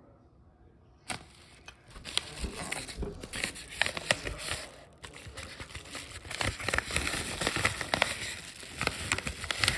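Paper mailer envelope being handled and opened by hand, crinkling and rustling with many small crackles, starting about a second in.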